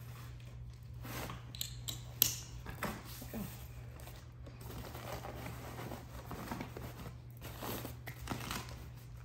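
Folded Keenz 7S+ stroller wagon being handled: its fabric bed rustling and its metal frame clicking, with one sharp click about two seconds in.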